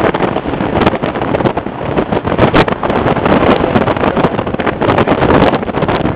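A car driving along the road, its engine and road noise heard under heavy wind buffeting on the microphone, with irregular knocks and rattles.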